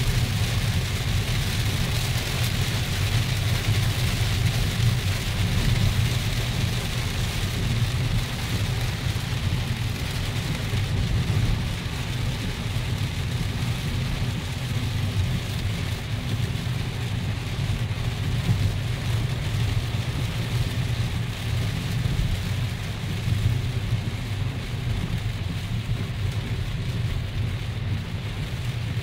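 Heavy rain beating on a car's roof and windscreen, heard from inside the cabin, over the steady low rumble of the car's engine and tyres on the wet road.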